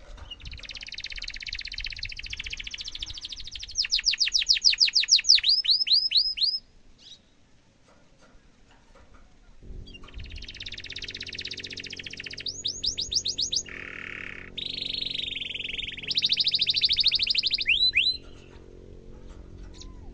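Domestic canary singing in full voice: long rolling trills and runs of quick rising whistles in two song phrases, with a pause of about three seconds between them.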